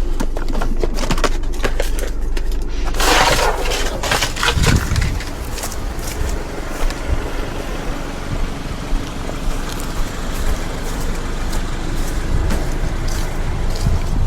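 Car engine idling steadily, with scattered light clicks and knocks over it and a brief rush of noise a few seconds in.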